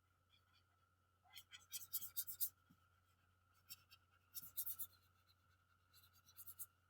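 Drawing strokes scratching on a surface, in several short flurries, over a faint steady hum.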